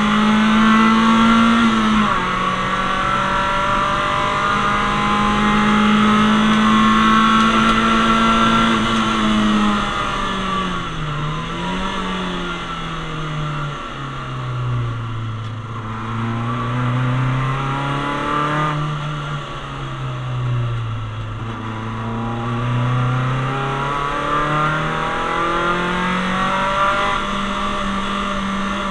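Citroën Saxo VTS's 1.6-litre 16-valve four-cylinder engine heard from inside the stripped cabin, on track. It is held at high revs for the first ten seconds, then the revs drop and climb back twice through slower corners, and it pulls up to high revs again near the end.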